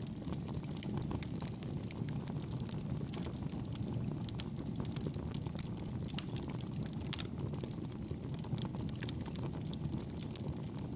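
Wood fire crackling: a steady low rush of burning with many small, irregular pops and crackles.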